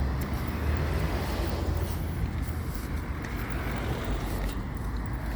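Road traffic on a busy street: car and truck engines and tyres running past in a steady rumble that eases off somewhat about halfway through.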